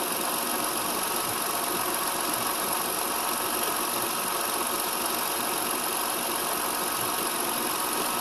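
A 2000 Lexus ES300's 3.0-litre V6 idling steadily with the hood open, just after new alternator brushes were fitted, the alternator now charging at about 14 volts.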